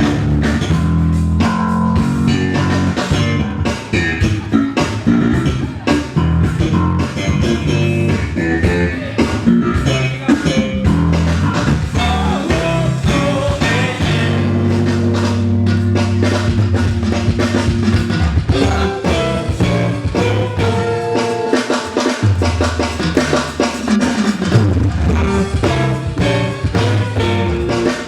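Live instrumental soul-funk band playing: drum kit driving a steady groove under bass and guitar.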